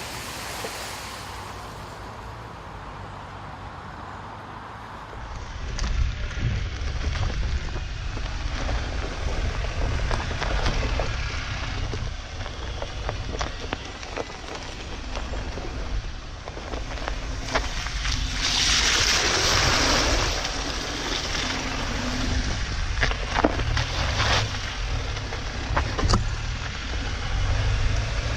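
Dacia Duster 4x4 driving off-road over rough ground: a low rumble with scattered knocks and rattles. A loud rushing hiss swells for a couple of seconds about two-thirds of the way through.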